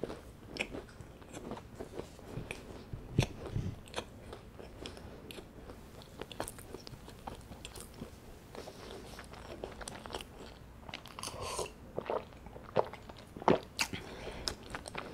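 Close-miked chewing of a mouthful of scone with nuts inside, with irregular soft crunches and mouth clicks. There is one louder crunch about three seconds in and a closer run of crunches near the end.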